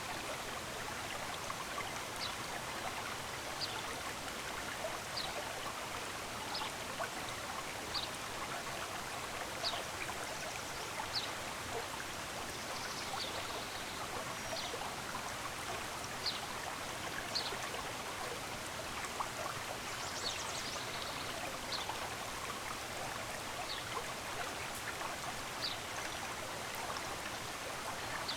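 Running water of a stream, a steady rushing hiss, with a bird repeating short high chirps about every second or two.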